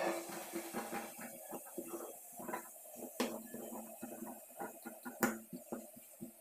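Large tailor's shears snipping through cotton fabric in a run of short crisp cuts, the blades clicking as they close, with a couple of sharper clicks along the way.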